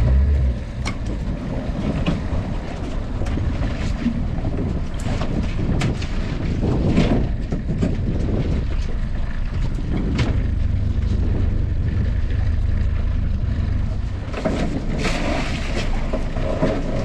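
Steady wind and water noise on a small open boat, with scattered knocks and clatter as lobster pots and rope are handled on deck.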